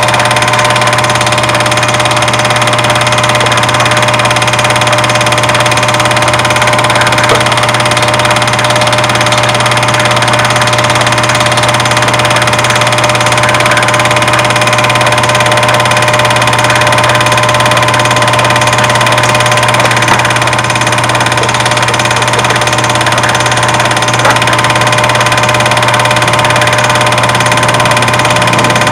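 Loud, steady hum with hiss, unchanging in pitch or level, with a couple of faint ticks late on.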